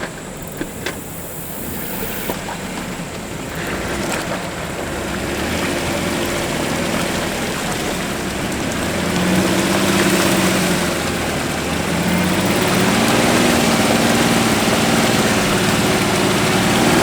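Jeep JK Wrangler's V6 engine straining under load as it crawls through deep, soft mud, with a steady rushing splash of mud and water from the spinning 35-inch tyres. About halfway in the engine note comes up and wavers as the revs rise and fall.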